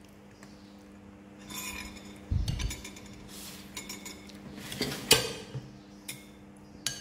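Metal spoons clinking and scraping against ceramic bowls and plates during a meal, in scattered irregular taps with the sharpest clink about five seconds in. A duller low knock comes about two and a half seconds in.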